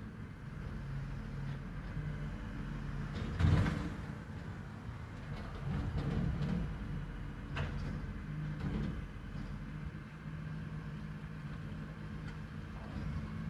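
Rear-loader garbage truck engine running steadily while its bin lifter tips wheelie bins into the hopper. The loudest is a clatter about three and a half seconds in, followed by several smaller knocks of bins and rubbish.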